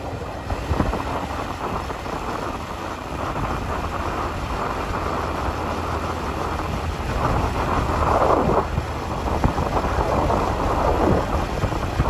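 Wind buffeting the microphone of a moving Honda Super Cub 90 motorcycle, over the low running of its small single-cylinder four-stroke engine. There are a couple of stronger gusts in the second half.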